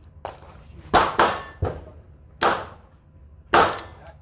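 A run of about six sharp gunshots at a shooting range, each with a short echoing tail, two of them coming close together about a second in.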